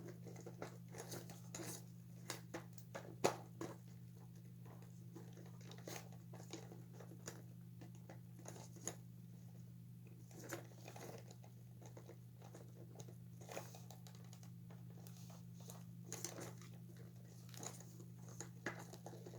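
Faint, scattered clicks, taps and rustles of hands handling and prying at the plastic and cloth parts of an animated toy figure, over a steady low hum.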